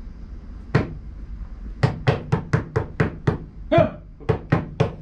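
A single sharp knock about a second in, then from about two seconds in a quick, even run of knocks, about four a second.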